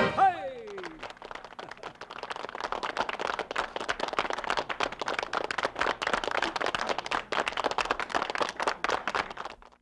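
The polka band's closing note slides down in pitch and dies away in the first second. Then a small audience claps steadily until the sound cuts off abruptly near the end.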